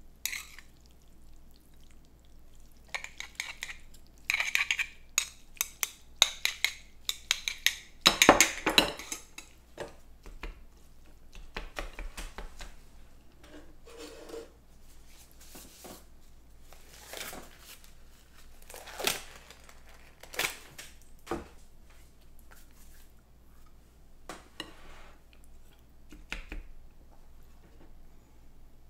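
Eating utensil clinking and scraping against a bowl of ramen. A quick cluster of clicks runs for several seconds, loudest about eight seconds in, followed by scattered single taps.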